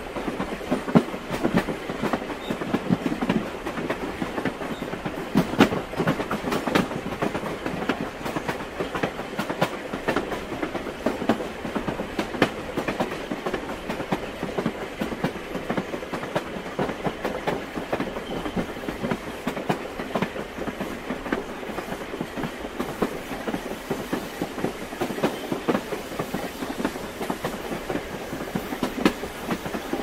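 Steady mechanical clatter made of many dense, irregular clicks over a rolling rumble.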